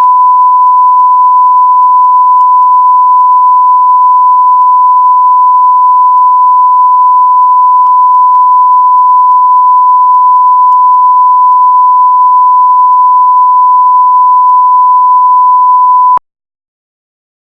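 Television test-card tone: one loud, steady, unwavering beep held for about sixteen seconds, then cutting off suddenly.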